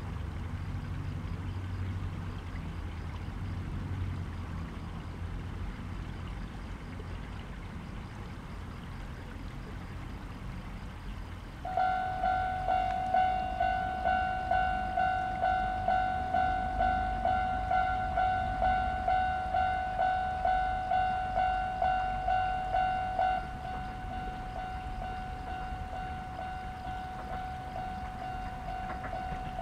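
A low rumble, then a ringing warning signal that sets in suddenly about twelve seconds in and sounds a clear pitched tone about twice a second for some twelve seconds. It then drops to a fainter steady tone.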